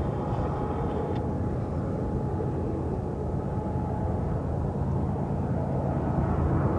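GE ES44C4 diesel-electric locomotives hauling a double-stack freight train: a steady low engine rumble with a faint hum on top, growing a little louder near the end as the train draws closer.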